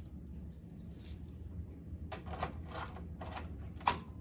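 Clicking and rattling of a manual fire alarm pull station being worked by hand, a cluster of clacks in the second half with the sharpest one near the end, over a low steady hum.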